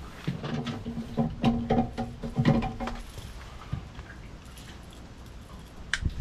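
A flathead catfish croaking out of the water: a quick run of short low grunts, all at the same pitch, for about three seconds. A single sharp click comes near the end.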